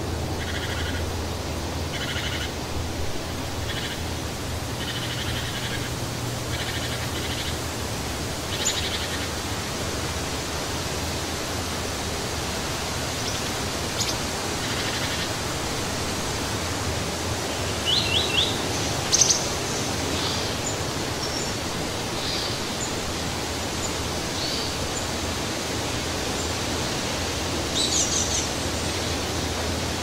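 Steady wind rushing through trees with birds chirping over it. Short calls repeat about once a second for the first eight seconds or so, then come scattered higher chirps, including a quick trill partway through and another burst of chirps near the end.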